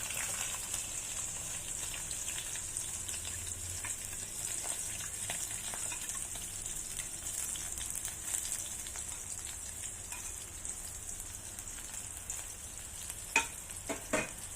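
Onions frying in hot oil with Indian mixed spices: a steady sizzle that starts suddenly as the onions go into the pan, with a few sharp clicks near the end.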